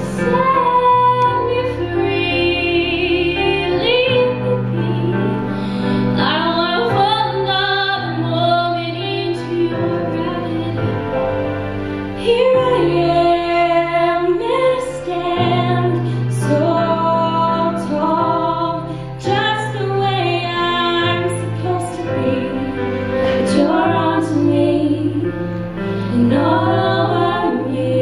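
Two female singers singing a slow ballad duet with wavering, held notes, over a steady backing accompaniment of sustained low notes.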